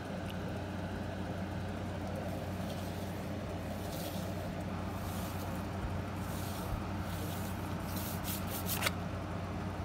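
A steady low machine hum, like an engine or motor running. A few faint short scratchy clicks come near the end.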